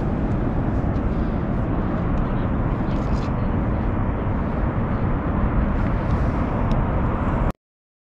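Wind buffeting the action camera's microphone, a steady low rumble that cuts off suddenly near the end.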